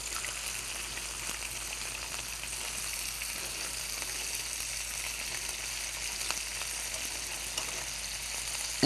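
Prosciutto-wrapped beef rolls sizzling steadily in olive oil in a stainless steel skillet while they are turned with tongs, with a few faint clicks.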